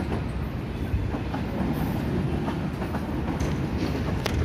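Train running along the track: a steady low rumble with a few sharp clacks of wheels over rail joints and points, the clearest near the end.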